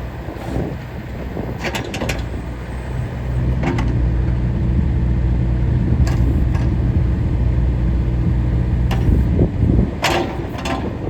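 Case CX60C mini excavator's diesel engine running steadily, getting louder a few seconds in as it takes on more power. Several sharp knocks from the machine are scattered over it.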